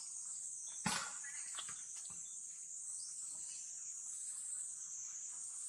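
Steady high-pitched drone of insects such as crickets or cicadas, with a sharp knock about a second in and a few faint clicks after.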